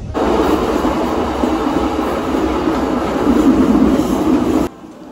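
Passenger train running on the rails: a loud, steady running noise of wheels on the track that starts suddenly and cuts off abruptly about four and a half seconds in.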